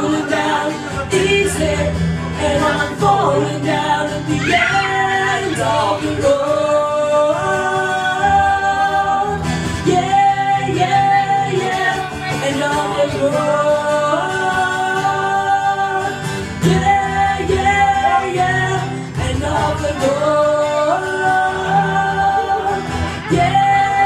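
Live acoustic music: a strummed acoustic guitar with a man and a woman singing together, holding long notes.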